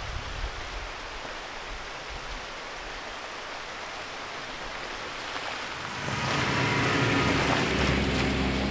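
A steady rain-like hiss, then about six seconds in a Jeep Wrangler's engine grows louder as it drives slowly up through the snow and passes close by.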